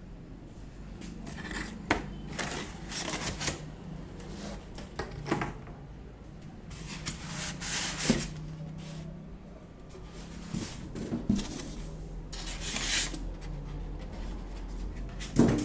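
Printer packaging and accessories being handled: irregular rustling and scraping with scattered knocks, the loudest knock near the end.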